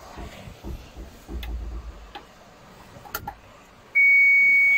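Volvo 290 excavator's cab warning buzzer giving one steady, loud, high-pitched beep as the key is turned for a start, beginning about four seconds in. Before it, a few faint clicks from the controls.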